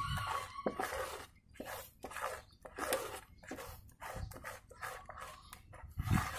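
Plastic spatula stirring and scraping a thick, wet fishing-bait dough in a plastic bowl: irregular squelching strokes, about one or two a second.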